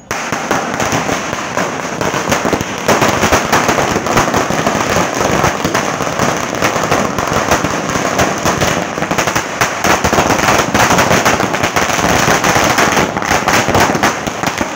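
A 1000-wala firecracker string going off: a rapid, unbroken volley of small bangs that starts suddenly and keeps going.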